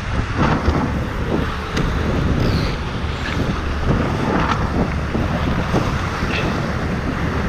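Wind buffeting the microphone over the rush of water along the hulls of a Tornado racing catamaran sailing at speed, with brief splashes.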